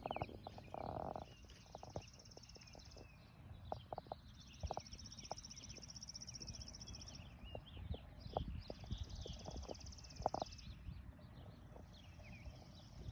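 Outdoor animal chorus: long high trills, each lasting two to three seconds and repeating about four times, over faint chirps and scattered clicks.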